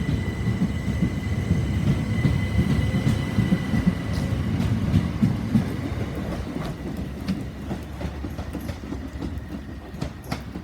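Passenger train running out of the station: a low rumble with wheel clatter over the rail joints, and a steady high whine that fades out about two-thirds of the way through. The whole sound slowly dies away as the train draws off.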